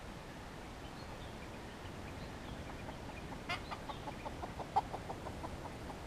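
Red junglefowl rooster clucking in a quick run of short clucks, about seven or eight a second, for about two seconds from a little past the middle.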